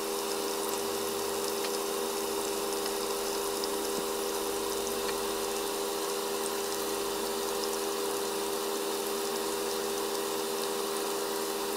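Marinated boneless chicken pieces shallow-frying in hot oil in a nonstick pan: a steady sizzle with a few small pops, over a steady low hum.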